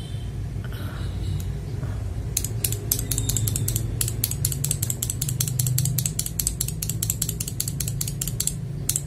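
Keys of a mechanical keyboard clacking in a fast, dense run of presses, starting a couple of seconds in, over a steady low hum.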